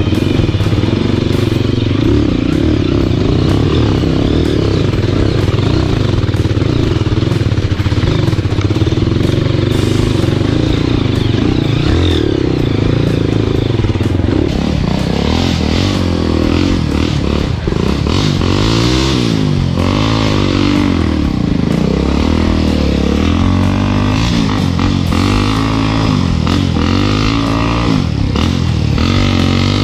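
Single-cylinder trail motorcycle engine running steadily, then from about halfway through revving up and falling back again and again.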